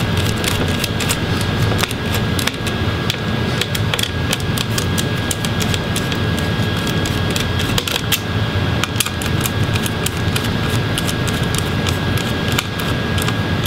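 A 2.5 mm Phillips screwdriver is backing out the heatsink screws on a laptop motherboard, making scattered light clicks and ticks. Underneath is a steady background hum with a faint high steady tone.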